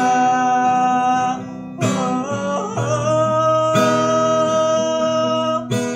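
A busker singing a Malay ballad, holding long notes with a slide in pitch in the middle, over an acoustic guitar strummed about every two seconds.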